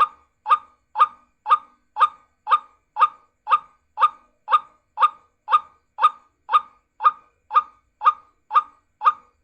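Recorded geguak bird call played as a lure, one short call repeated at an even two per second, each call sharp at the start and quickly fading.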